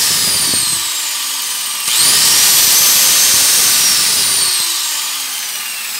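Angle grinder's motor winding down at first, then switched on again about two seconds in, its high whine rising quickly to full speed, running for about two seconds and then released to coast down. It now starts and runs after a switch fault was fixed by bridging the power cord straight to the motor winding.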